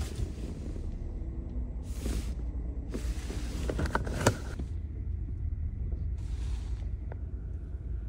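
Pickup truck engine idling, a steady low rumble heard inside the cab, with a few short rustles and clicks from handling nearby.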